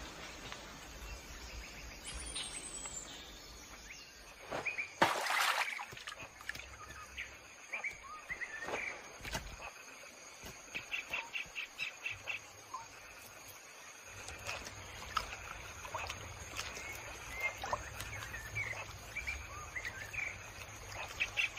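Forest ambience of birds chirping and calling, with a rapid pulsed trill twice and a louder burst about five seconds in.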